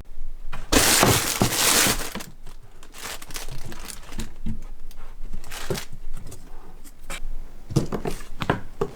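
Crinkling and rustling of handled material, loudest in a long burst about a second in, then scattered lighter rustles and ticks.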